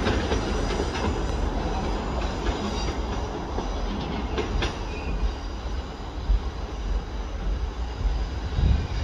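Class 156 diesel multiple unit pulling away over curved track and points. Its engines run and its wheels rumble, with a few sharp clicks over the rail joints and a faint high squeal from the wheels on the curve. The sound slowly fades as it recedes.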